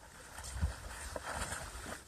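Water splashing and sloshing as a kangaroo and a dog struggle in a pond, with a few sharper splashes and a low rumble of wind on the microphone.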